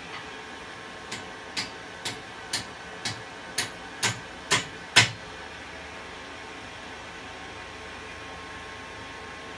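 Eight hammer blows on a thin strip of red-hot steel at the forge, about two a second, each louder than the last, the final one the loudest. A steady rushing noise runs underneath.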